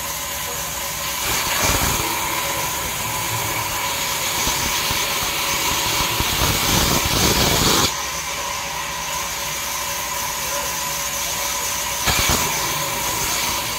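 Sawmill band saw running steadily with a constant tone, ripping jackfruit wood. The cutting noise swells from about a second in and drops back near eight seconds, with another short surge about twelve seconds in.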